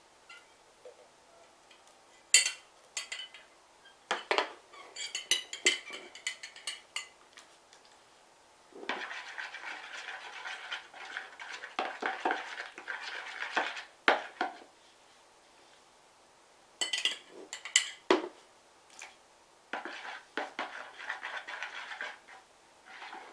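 Slime mixture being stirred in a bowl: a utensil clinks and knocks sharply against the bowl, with two longer stretches of steady scraping as the glue is worked together with the water and glycerin.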